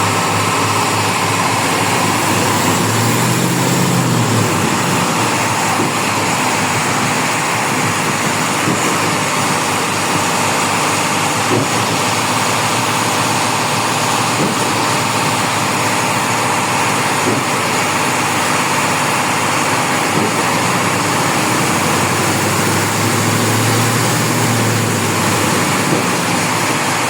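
Concrete mixer running: a steady mechanical drone with a few faint knocks.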